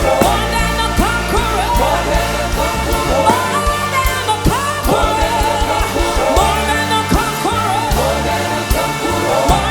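Music with a singer's voice over a band with a repeating bass line.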